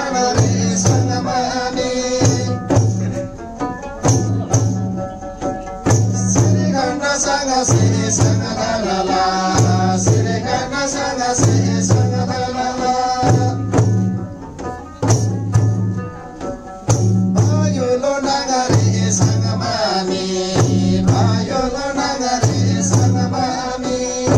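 Tamang damphu frame drums struck in a steady, repeating rhythm while a group sings a Tamang ritual offering song together in unison.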